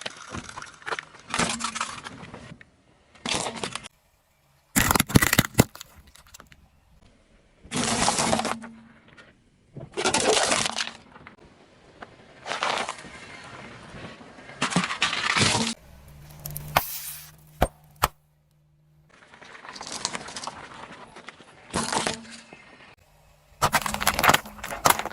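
A run of separate crunching and cracking bursts, each about a second long: objects breaking as a car's tyres roll over and crush them.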